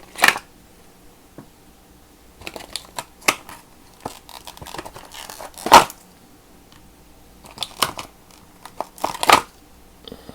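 Packaging of a screwdriver set being handled and torn open, with crinkling, tearing and knocking as the screwdrivers are pulled out. It comes in several short clusters, the loudest a little past the middle.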